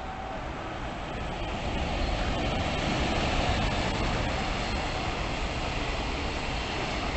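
Freight train hauled by an EF210 electric locomotive passing through the station, a steady rumble of wheels on rail that grows louder over the first two seconds as the locomotive arrives and the cars go by.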